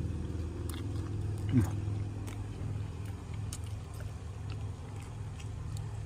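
A man chewing a mouthful of wrap, with scattered wet mouth clicks and one brief louder sound about one and a half seconds in, over a steady low hum.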